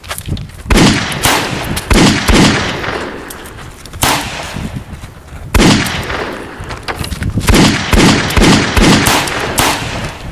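Gunfire in an exchange of shots: single cracks a second or so apart, then a rapid run of shots in the last few seconds, each crack trailing off briefly.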